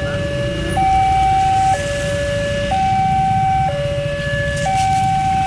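Railway level-crossing warning alarm: an electronic two-tone signal that switches between a lower and a higher tone about once a second, warning that a train is approaching while the barriers are down. Motorcycle and car engines idle underneath as a low rumble.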